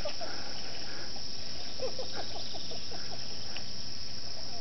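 Steady outdoor hiss of insects chirping, with a quick run of short low chirps or clicks about two seconds in.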